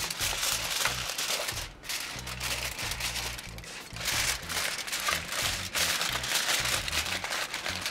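Aluminium foil crinkling and rustling in uneven spells as hands fold and crimp it around ribs in a foil pan, over background music with a steady bass line.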